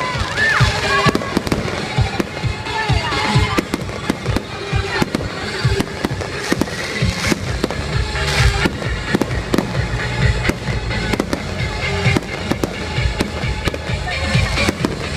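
Fireworks display: a rapid, unbroken run of bangs and crackling bursts, with music playing underneath.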